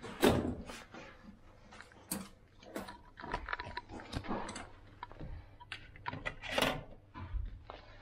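Hotel room door and entry handling noise: irregular knocks, clicks and rustles as the door swings open and someone walks in holding a paper keycard sleeve, the loudest knock right at the start.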